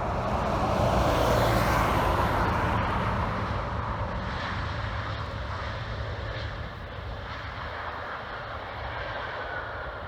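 Turbofan engines of an Embraer 190 airliner on landing, the jet noise swelling to its loudest a second or two in and then slowly fading as it passes. A faint high whine comes in near the end.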